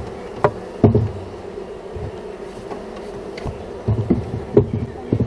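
Steady buzzing of a mass of honeybees at an open top-bar hive, with several sharp wooden knocks and taps as the hive's wooden top bars are handled.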